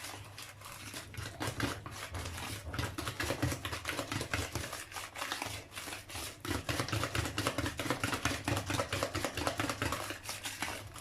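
Chocolate cake batter being stirred by hand in a mixing bowl: a utensil working through the wet batter and knocking and scraping against the bowl in quick, even strokes, several a second.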